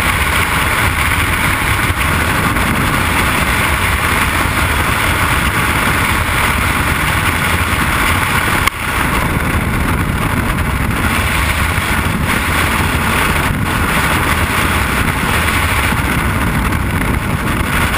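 Skydiving freefall wind rushing over the camera's microphone: a loud, steady roar of air, with one brief dip about nine seconds in.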